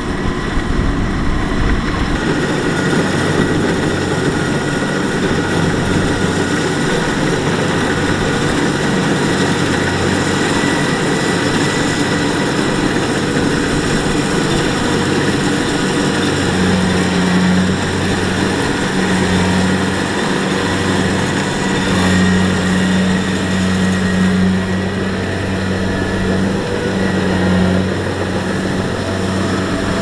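Kubota rice combine harvester's diesel engine running steadily under load while it cuts and threshes rice, with a thin steady whine above the low engine note. The engine note grows stronger about halfway through.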